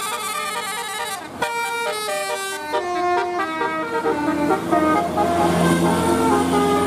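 Indonesian bus 'telolet' multi-tone musical horn playing a tune in quick stepped notes, breaking off briefly about one and a half seconds in and then starting again. The bus's engine grows louder under the horn in the second half.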